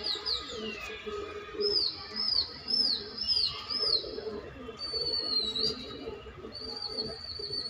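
A small bird's high whistled calls: a run of about five short notes, each rising and falling, evenly spaced, then two longer trilling notes held at one pitch. Faint low pigeon cooing sounds underneath.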